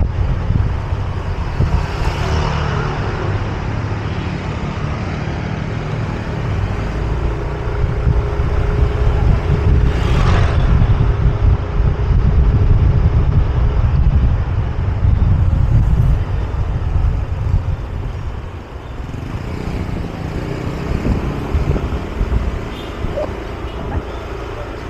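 Wind rushing over the microphone with the engine and road noise of a Yamaha motor scooter riding at low city speed. A brief rushing swell comes about two seconds in and again about ten seconds in.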